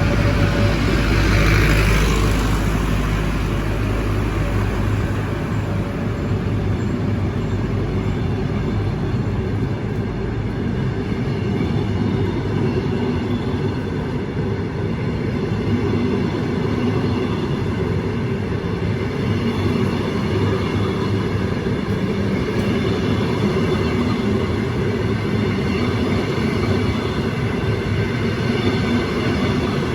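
Train at a railway station: steady running noise with several steady tones, and a heavy low rumble that drops away about five seconds in.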